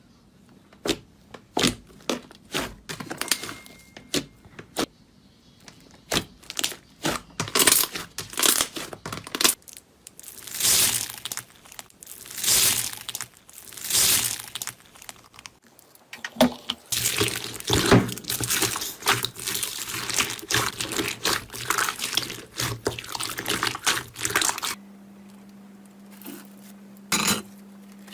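Slime being handled by hand: a run of sticky clicks and pops, turning after about ten seconds into longer wet squishing and stretching sounds every second or so. A low steady hum comes in near the end.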